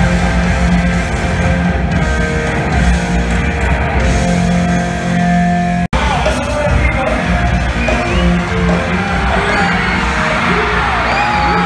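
Live rock band playing loud through a concert PA, with electric guitars, bass and drums, picked up from the audience. The sound cuts out for an instant about six seconds in, and after that voices yell over the music.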